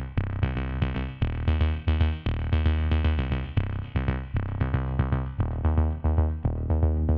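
Background music with a steady beat and a heavy bass.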